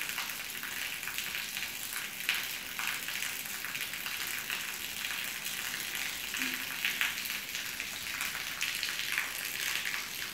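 Light rain falling on wet concrete: a steady crackling hiss with many small scattered ticks.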